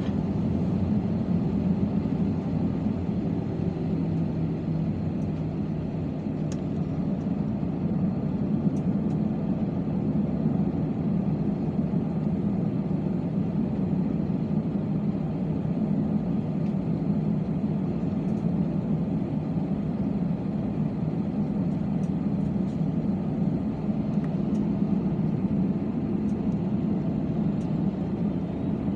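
Steady, even drone inside the cabin of an Airbus A320 airliner with CFM56-5B engines: engine and airflow noise, strongest low down, with a few faint ticks.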